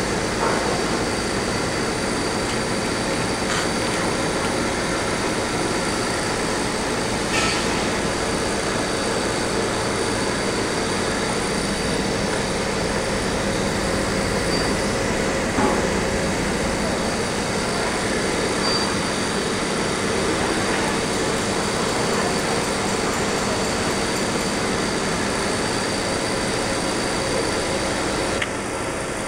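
Canning-line machinery running: a steady mechanical clatter with a faint hum, and a few sharp clicks. The noise drops and thins just before the end.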